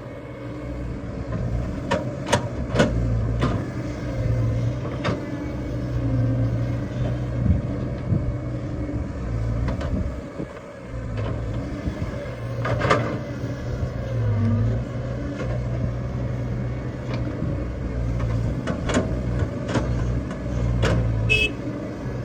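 Excavator's diesel engine running steadily under load, with scattered sharp knocks and clanks from the machine at work.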